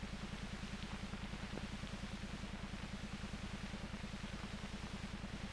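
Steady low pulsing hum, about eight pulses a second, over a bed of hiss: the background noise of an old film soundtrack.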